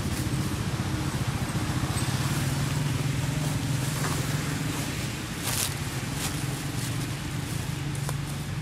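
An engine running steadily with a low hum, with a couple of brief faint clicks or rustles near the middle.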